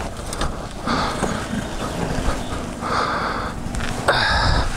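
Dirt bike engine running low under rumbling wind and handling noise on a helmet-mounted camera, with three short hissing bursts about one, three and four seconds in, while the bike is bogged in a rut.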